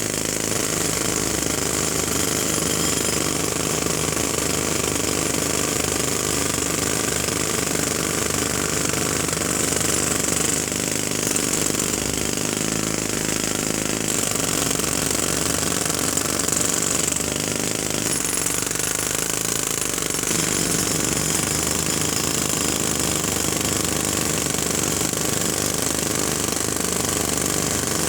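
Jackhammer hammering continuously and loudly, a fast steady rattle of blows that never pauses.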